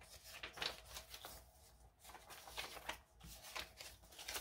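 A handful of paper prop-money bills rustling and flicking in a run of quick, faint rustles as they are leafed through and counted by hand.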